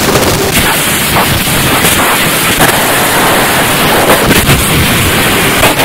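Harsh digital noise music: a loud, dense wall of distorted static spread across the whole range, broken by abrupt cuts and crackles several times.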